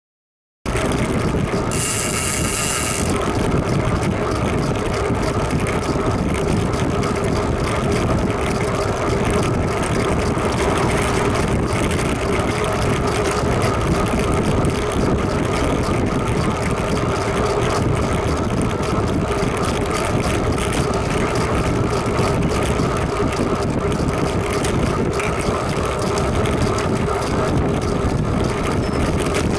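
Steady wind and road noise from a camera on a moving bicycle, with a brief high hiss about two seconds in.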